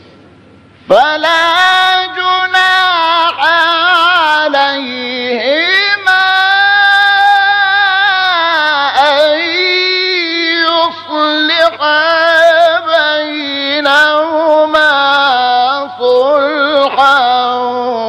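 A solo voice chanting Quran recitation in a melodic tajwid style, drawing out long held, wavering notes. It comes in about a second in after a brief quiet pause.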